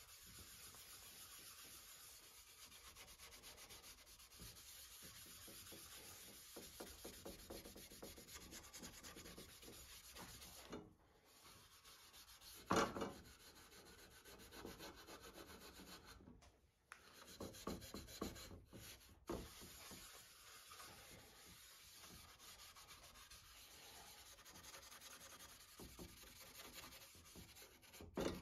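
Hand sanding the rusty steel blade of an antique crosscut saw: an abrasive rubbing back and forth along the metal in repeated strokes. About midway there is one sharp knock, the loudest sound.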